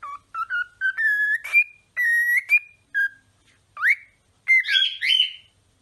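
Cockatiel whistling a string of clear notes: short ones at first, then longer held notes, a quick rising whistle about four seconds in, and a wavering phrase near the end.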